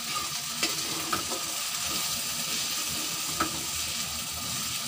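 Okra sabzi frying in a metal kadhai, sizzling steadily, while a spatula stirs it, with a few clicks of the spatula against the pan.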